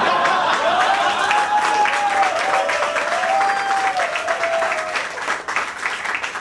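Audience applauding a joke, with a wavering, drawn-out cheer rising above the clapping for several seconds. The clapping thins out near the end.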